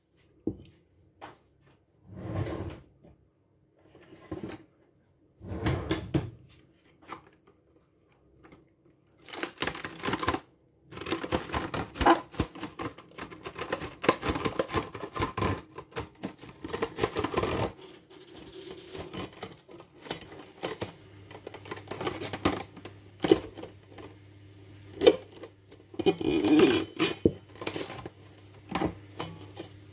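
Kitchen handling sounds: a few separate knocks and clicks, then several seconds of dense clattering and rustling, then scattered knocks again. A low steady hum comes in about two-thirds of the way through.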